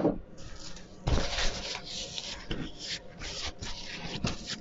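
Irregular rustling and scraping of things being handled, coming in uneven patches from about a second in.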